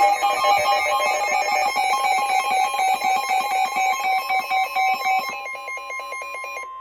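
A rapidly repeating electronic melody of bright, ringing notes, like a phone ringtone. It fades over the last couple of seconds, with one steady high tone held beneath it until it cuts off sharply.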